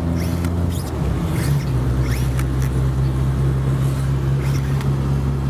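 Car engine and road noise heard from inside the cabin: a steady low hum whose pitch shifts about a second in and then holds steady.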